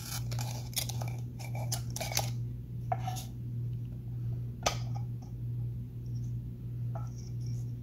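A metal screw band being unscrewed from a glass canning jar and the perforated metal lid lifted off. It gives a few scattered scrapes and sharp clicks of metal on glass, the loudest about two-thirds of the way through, over a steady low hum.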